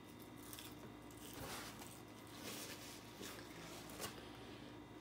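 Faint eating sounds close to the microphone: a handful of soft, brief crunches and mouth clicks while chewing fast food.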